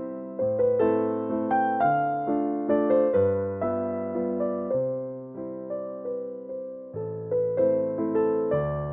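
Background music: a gentle piano melody, notes struck one after another and left to fade.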